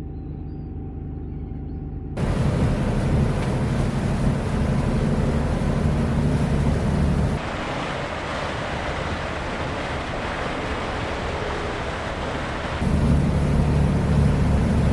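A motor yacht's engines droning under way, mixed with rushing wind and water noise. The mix shifts abruptly a few times: quieter at first, then louder and deeper, hissier with less engine in the middle, and deep and loud again near the end.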